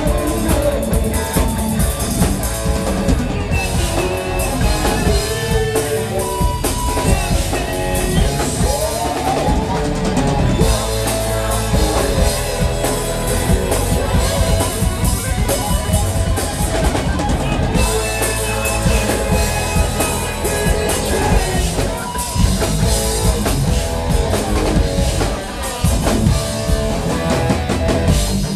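Live rock band playing at full volume: drum kit, electric guitar and bass, with singing.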